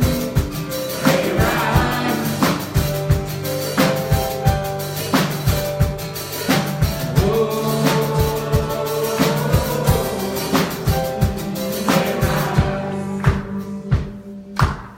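Live gospel worship music: a band with a drum kit keeping a steady beat under sustained chords, with singing. Near the end the other instruments fall away, leaving a few separate drum hits.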